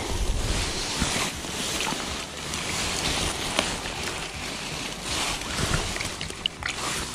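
Wind buffeting the microphone: a rough rushing hiss with low rumbling gusts, strongest in the first second, and a few faint clicks.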